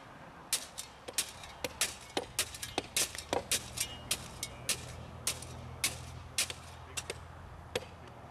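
Steel shovel working gravel railway ballast between wooden ties: a run of sharp, irregular clinks and knocks as the blade strikes and scrapes the stones. A low steady hum joins about two seconds in.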